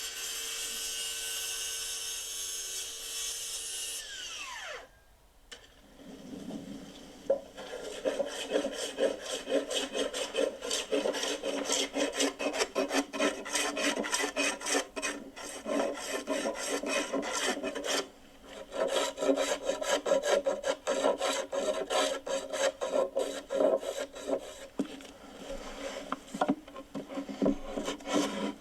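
A power tool's motor spins up, runs steadily and winds down about five seconds in. Then wood is sawn by hand in quick back-and-forth rasping strokes, with a brief pause about two-thirds of the way through.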